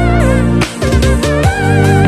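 Background music: an electronic track with a strong bass line, a wavering lead melody and a steady beat.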